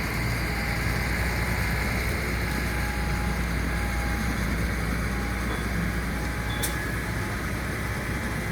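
Steady drone of heavy drilling-rig machinery running, with a strong low hum, and one brief sharp click about two-thirds of the way through.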